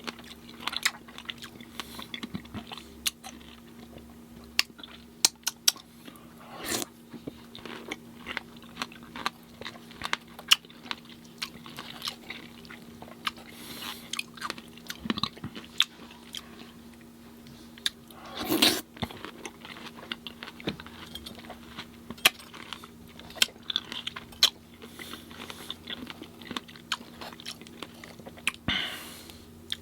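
Close-miked chewing and biting of fresh fruit in coconut water: a steady run of wet mouth clicks and smacks, with a few louder slurpy bites now and then.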